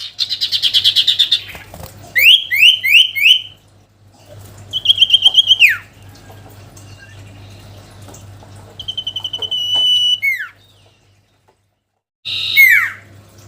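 A cipoh (common iora) singing loud whistled phrases broken by short pauses: a fast trill, four quick down-slurred notes, a long steady whistle that drops at the end, another trill and held whistle, and a final falling note. This is the 'gacor' calling song used to draw a rival male. A faint low hum lies under the song.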